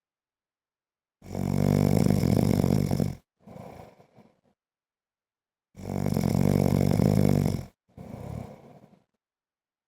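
A man snoring: two long, loud, rattling snores about four and a half seconds apart, each followed by a shorter, quieter one.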